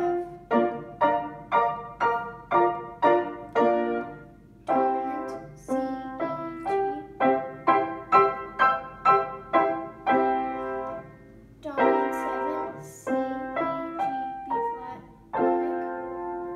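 Upright piano played with both hands: separate struck notes or chords at about two a second, then after a brief pause a faster, more connected passage of notes with short breaks.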